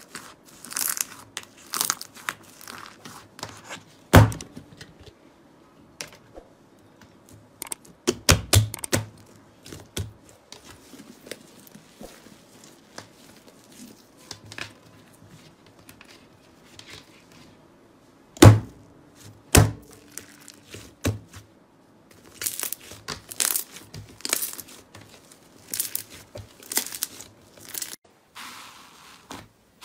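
Slime being poked, squeezed and stretched by hand in a plastic tub: sticky crackling and squelching, broken by a few sharp pops, the loudest about four seconds in and again past the middle.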